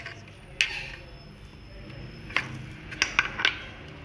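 Metal kitchen utensils being handled: a few sharp clicks and knocks, one about half a second in and a quick cluster of four near the end, over a low steady background hum.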